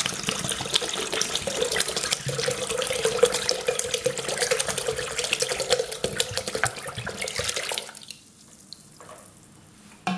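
Water poured from a plastic jug into a paint bucket already part-filled with rice-wash water, with steady splashing into the liquid. The pour stops about eight seconds in and is followed by a short knock near the end.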